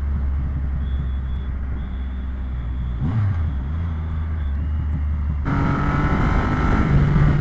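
Triumph Rocket 3 R's 2,500 cc three-cylinder engine running at highway speed, about 120 km/h, with heavy wind blast on the microphone. The engine note dips briefly about three seconds in, then jumps to a higher, louder note about five and a half seconds in.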